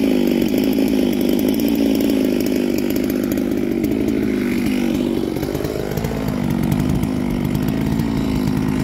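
Large two-stroke chainsaw held at full throttle in a cut through a big log. The engine pitch sags about five seconds in as the chain loads up, then climbs back.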